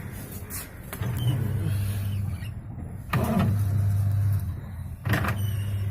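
Whirlpool White Magic washing machine agitating during the wash: its motor hum rises in three strokes about two seconds apart, with a sharp click at the start of each. Its gearbox is faulty, which the owner says gives a 'kat kat kat' noise.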